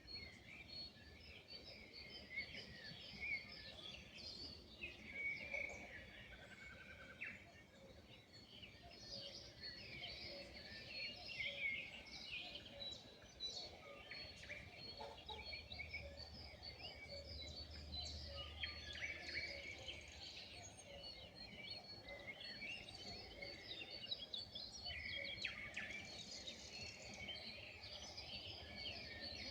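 Dawn chorus of many wild songbirds singing and chirping at once, overlapping short chirps and trills, over a faint steady background hiss.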